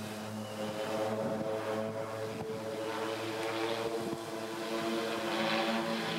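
A formation of Pilatus PC-7 turboprop trainers flying overhead, their engines and propellers making a steady hum of several overlapping tones. The tones shift in pitch about four seconds in as the formation changes position.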